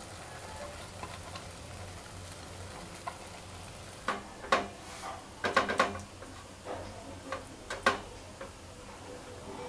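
A steady low kitchen background, then from about four seconds in a series of short, irregular clinks and scrapes as a steel plate and utensils knock against a pan while burfi mixture is scraped out onto the plate.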